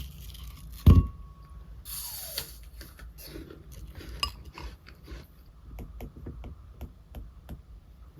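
A heavy thump about a second in, followed by a run of small clicks, taps and rattles of objects being handled.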